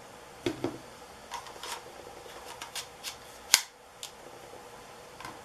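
Light plastic clicks and taps from a small toy quadcopter drone being handled and fitted together, with one sharp, louder click about three and a half seconds in.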